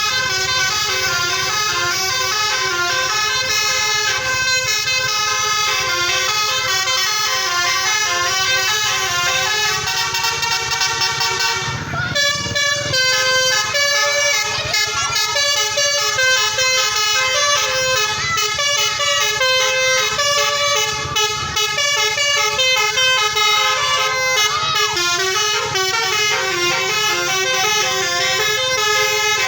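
Telolet horn, a multi-tone musical air horn, playing loud melodic tunes of several notes sounding together. About twelve seconds in it breaks off briefly and starts a different tune.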